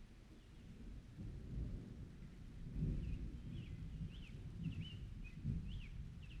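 Distant thunder rumbling low and rolling, swelling loudest about halfway through and again near the end. A bird chirps in short quick calls through the second half.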